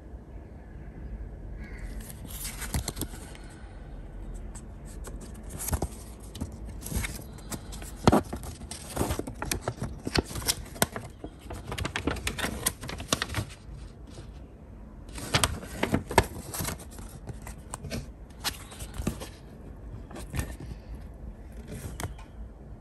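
Paper rustling and crackling as a folded instruction sheet is unfolded and handled, in spells of crisp crackles with short pauses between them.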